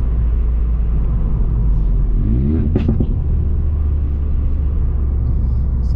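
Ford Fiesta ST Mk8's turbocharged 1.5-litre three-cylinder engine through a Scorpion valved cat-back exhaust with the GPF deleted, heard from inside the cabin: a steady low drone while driving, with a short rise in revs a couple of seconds in that ends in one sharp short sound.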